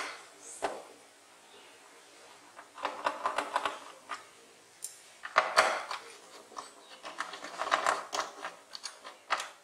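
Hand screwdriver working screws out of a plastic TV back cover: bursts of small clicks and rattles of metal on plastic, in three clusters a couple of seconds apart.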